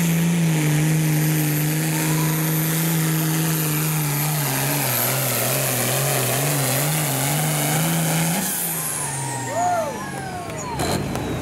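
Turbocharged diesel super farm tractor engine at full throttle pulling a weight-transfer sled; its pitch holds steady, then wavers up and down as the tractor works down the track. About eight and a half seconds in the engine drops off at the end of the pull, and a high whine glides down as it winds down.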